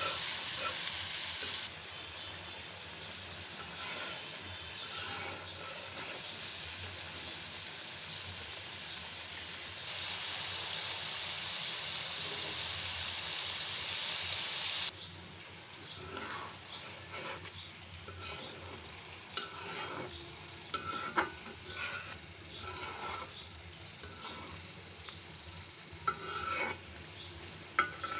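Masala paste and eggplant frying and sizzling in oil in a karahi, stirred with a metal spatula. A steady, loud sizzle drops abruptly about halfway through to a quieter sizzle, broken by frequent short scrapes and clicks of the spatula against the pan.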